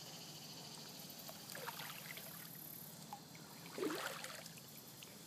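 Faint water trickling and dripping around a kayak on a stream, with a thin high insect drone in the first few seconds and a short, faint rising sound a little before the end.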